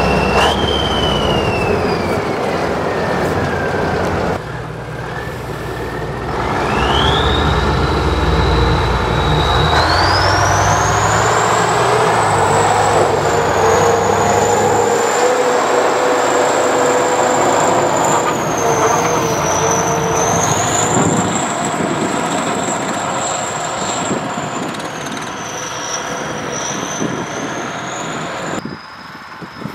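Kirovets K-700A tractor's YaMZ V8 diesel engine running hard, with a high whine that follows engine speed: it falls over the first few seconds, climbs steeply a few seconds later, and then holds high with small dips.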